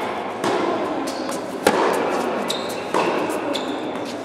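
Tennis ball struck by rackets and bouncing on an indoor court: three sharp impacts about a second and a quarter apart, each followed by a long echo from the hall.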